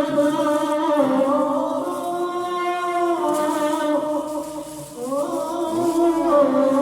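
A man's unaccompanied voice chanting a long, drawn-out melodic phrase of an Arabic devotional poem, holding notes and sliding between them. It dips briefly about five seconds in, then glides back up.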